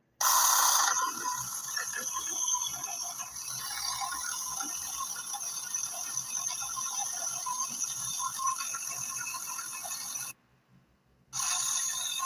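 Small battery-powered mini chainsaw running at full speed with a high-pitched motor whine and a rattling chain. It stops suddenly for about a second near the end, then starts again.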